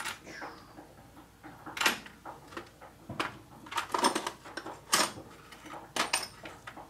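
Small metal shock-absorber parts clinking and knocking on a workbench as they are picked up and moved around by hand, in scattered sharp clinks a second or so apart.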